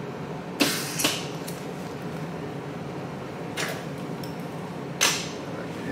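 MIG welder laying short tack welds on a buggy's steel frame: four brief bursts of arc noise, two close together about half a second apart near the start, a weaker one in the middle and another near the end, over a steady low shop hum.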